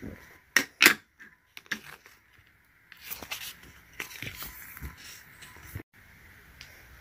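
Clear adhesive tape pulled from a plastic desk dispenser and torn off, with two sharp rips a little under a second in, then a stretch of crackly crinkling and scraping as the taped paper is handled.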